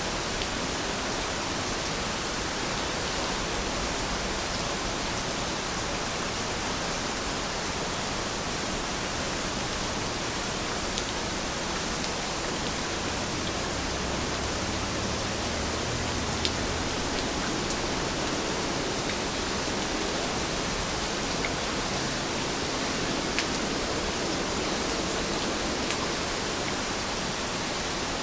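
Steady rain, falling evenly as a dense hiss, with faint scattered drop ticks.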